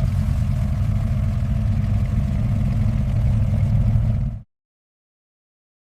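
Car engine idling with a steady, deep rumble, which cuts off suddenly about four and a half seconds in, followed by silence.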